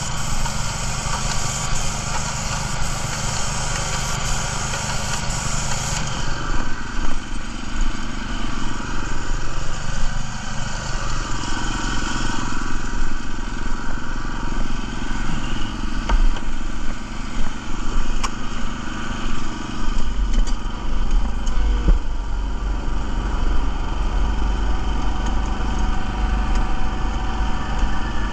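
Small gasoline engine of a Graco airless line striper running steadily. The airless spray gun hisses as paint goes through a stencil and cuts off about six seconds in. About two-thirds of the way through, the engine's low rumble grows stronger as the striper moves off.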